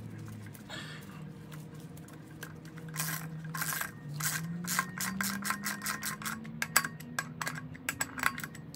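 Socket ratchet wrench clicking in quick runs as it is swung back and forth, with some metal rubbing, while threading the Loctite-coated sprocket bolts down on a motorcycle rear wheel.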